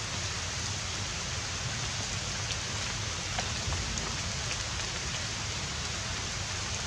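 A steady, even outdoor hiss with a low rumble underneath and a few faint ticks.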